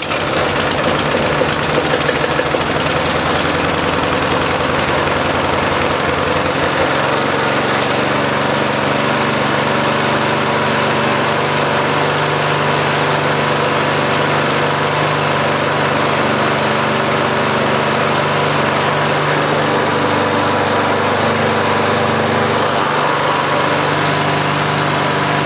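Briggs & Stratton Classic 35 single-cylinder four-stroke lawnmower engine running just after being restarted following a service. Its speed wavers for the first several seconds, then it settles into a steady run.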